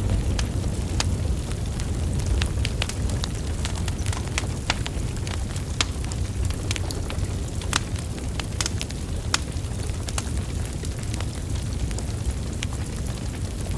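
Wood fire burning: logs crackling, with frequent sharp irregular pops over a steady low rumble of flame.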